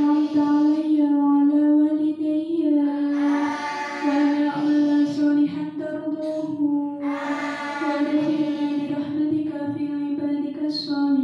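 A group of girls chanting a prayer together in unison, held on nearly one pitch and swelling in long phrases every few seconds.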